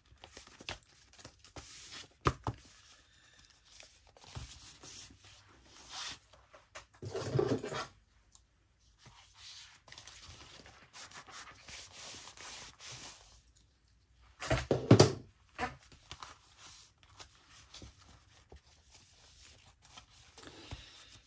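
Paper pages being handled and rustled, with scattered small clicks and a few louder knocks; the loudest knock comes about fifteen seconds in.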